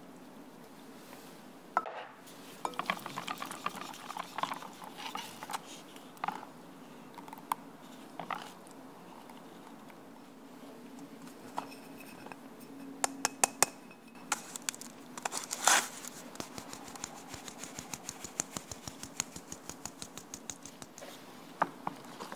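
Wire whisk clinking against a glass mixing bowl in scattered taps as the batter is stirred. Later, flour goes into a fine mesh sieve and the sieve is tapped in a fast, even run of ticks to sift it into the bowl.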